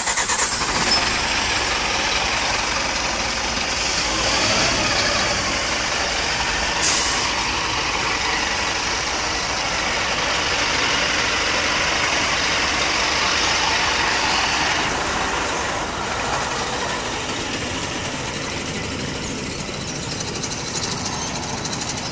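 Fire truck's diesel engine running steadily just after starting, loud, with a rushing hiss over it. A brief air hiss about seven seconds in.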